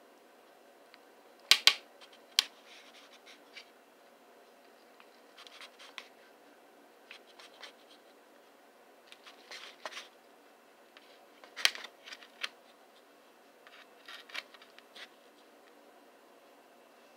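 Kitchen knife cutting through a flatbread sandwich on a paper plate: scattered scraping strokes with a few sharp clicks of the blade against the plate, the loudest near the start and again about two-thirds of the way through.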